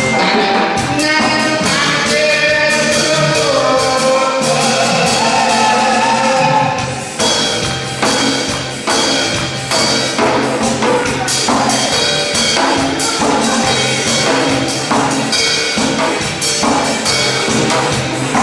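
Lively music with a man singing into a microphone and a janggu (Korean hourglass drum) beaten along with it. Long held notes dominate at first; about seven seconds in, quick, steady drum strokes take over.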